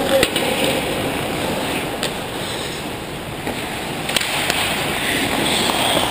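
Ice hockey play on an indoor rink: a steady hiss of skate blades on the ice, with a few sharp clacks of sticks and puck around the goal.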